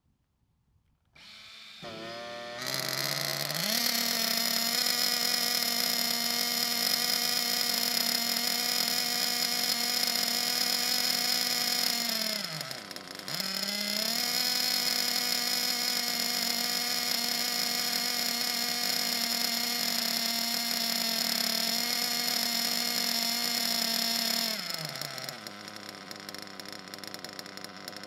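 Nitro RC car engine running at a steady high pitch. It eases off and picks straight back up about halfway through, then drops to a lower, quieter steady idle near the end.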